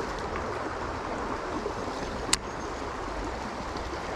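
Shallow creek water running over rocks: a steady rushing. A single sharp click about two seconds in.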